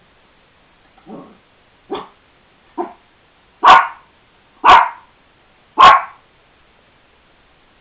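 Yorkshire terrier barking: three soft, short sounds that grow louder, then three loud barks about a second apart.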